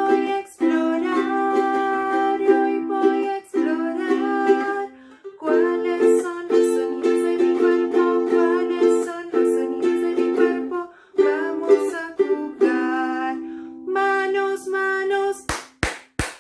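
Ukulele strumming chords in a steady children's-song accompaniment, with three sharp percussive hits in quick succession near the end.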